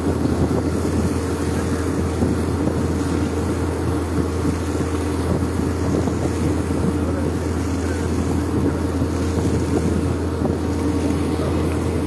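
Muddy water and gravel gushing steadily out of a water well's casing pipe, with a steady low machine drone underneath.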